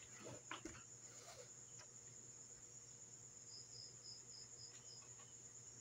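Near silence under a steady, high-pitched insect trill, crickets, with a short run of about six quick chirps a little past halfway and a few faint rustles about a second in.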